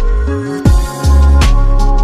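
Electronic background music with a heavy bass and a steady drum beat; a rising bass sweep about half a second in leads into a drum hit.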